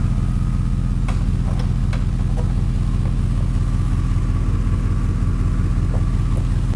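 Pickup truck engine idling steadily, a low, even hum, with a few light clicks and knocks in the first few seconds and again near the end.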